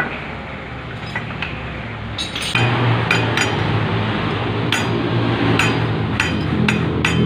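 Sharp metallic taps, irregular and about one or two a second, of a steel drift or punch driving a new bearing into the hub of a scooter's CVT pulley. About two and a half seconds in, a steady low machine hum starts abruptly and continues under the taps.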